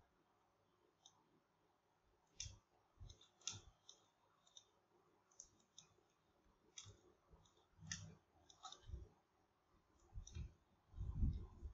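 Faint, irregular clicks of a computer mouse, about fifteen spread unevenly, with a couple of louder low thuds near the end.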